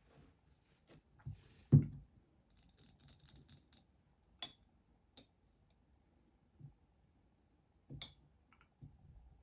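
Household objects being handled by hand: a dull thump, about a second of rapid light clattering, then a few separate sharp clicks.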